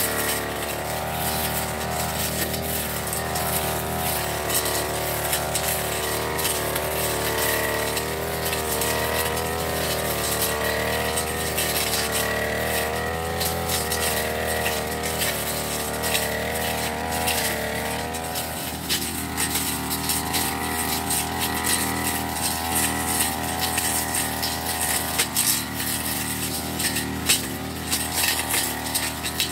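Backpack brush cutter engine running under load as it cuts grass and weeds, its pitch wavering up and down as the throttle is worked, with many sharp clicks over it.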